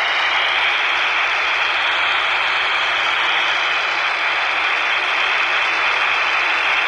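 Steady FM static hissing from a Baofeng UV-5R handheld's speaker, tuned to the ISS downlink on 145.800 MHz. The channel is empty between the astronaut's replies, so the open receiver gives only noise.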